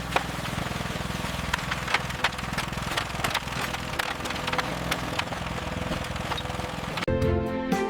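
Building or demolition work: a machine's engine running steadily under many sharp knocks and cracks. About seven seconds in it cuts to music with bowed strings.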